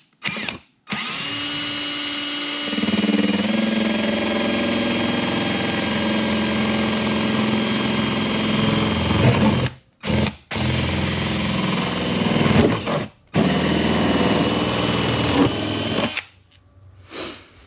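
Cordless drill enlarging a hole to 1¾ inch through a plastic ATV body panel. It runs in three long runs with brief stops between. About three seconds in, the motor gets louder and its note drops as the bit bites into the plastic.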